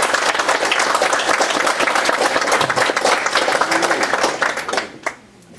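Audience applauding, a dense patter of many hands that dies away about five seconds in.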